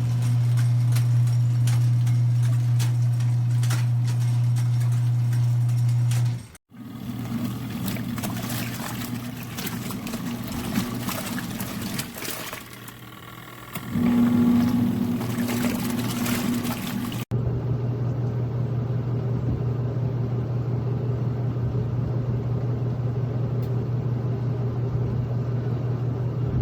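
Portable mini washer and spinner combo's electric motor running with a steady low hum, water churning in the tub. The sound changes abruptly twice, as separate stretches of the machine running follow one another.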